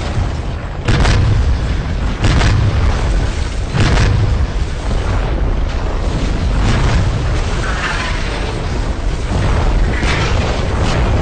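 Shells exploding around tanks: heavy blasts one after another, the first three about a second and a half apart, over a continuous low rumble.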